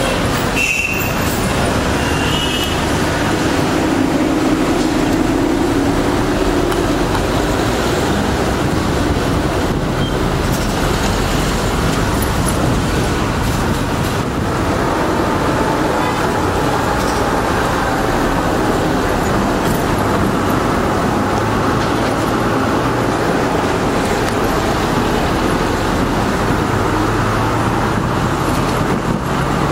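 Steady road traffic and engine noise from moving vehicles, with a low engine hum that shifts in pitch now and then.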